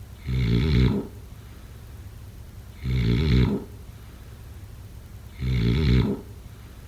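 Snoring: three loud, rattling snores under a second each, in an even rhythm about two and a half seconds apart.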